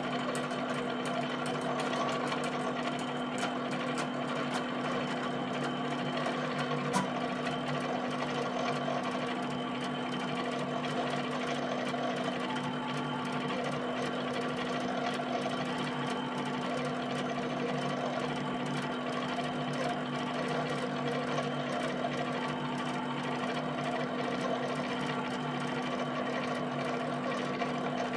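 HP 7585B pen plotter drawing rows of dots: a steady motor whine under rapid, fine ticking as the pen lifts and drops onto the paper. There is one sharper click about seven seconds in.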